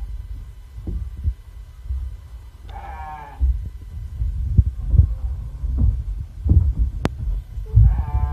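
Garut sheep bleating twice, a short call about three seconds in and another starting near the end, over irregular low thumps and rumble.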